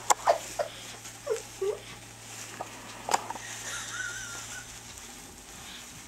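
Disposable diaper crinkling and clicking as a baby grabs and chews it: a few sharp crackles, mostly in the first half second and about three seconds in, with some short faint squeaks between them.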